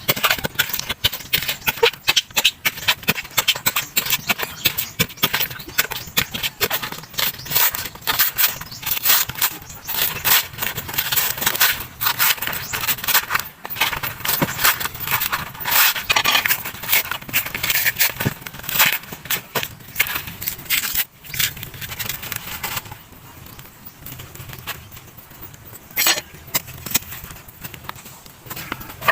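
Fibrous husk being peeled off a sprouted coconut: rapid crackling, tearing and scraping of the fibres. It eases off about three-quarters of the way through, with a couple of sharp knocks near the end.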